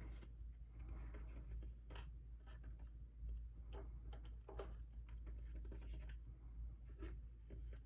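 Soft, irregular clicks and rustles of Pokémon trading cards and their packaging being handled, over a steady low hum.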